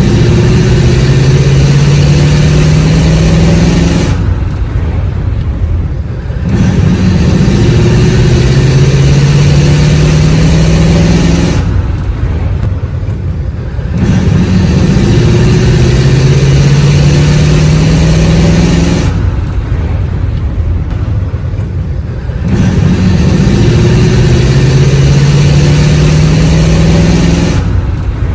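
Old 1939 car's engine pulling under acceleration, its pitch climbing steadily, then easing off for about two seconds as if between gears. The same rise-and-ease pattern comes round four times, about every seven and a half seconds.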